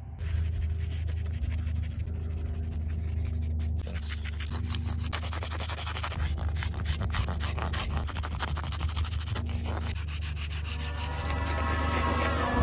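Sidewalk chalk scraping across rough asphalt in quick, repeated strokes, over a steady low hum.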